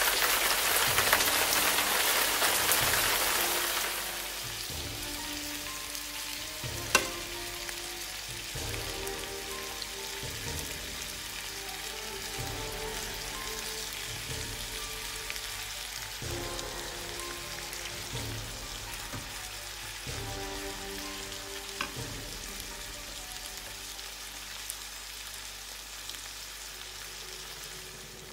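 Minced meat and bell pepper strips frying in a non-stick pan. The sizzle is loud at first and drops to a quieter steady hiss about four seconds in. A single sharp tap comes about seven seconds in.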